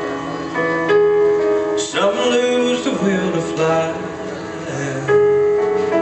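Electric stage keyboard (Yamaha) played with a piano sound: slow, sustained chords of a gentle ballad, changing every second or so.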